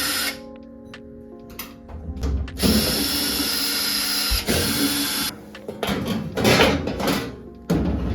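A power tool runs in bursts, one lasting about two and a half seconds midway and shorter ones near the end, while background music plays. This is most likely a power driver backing out the screws that hold the dryer's top panel.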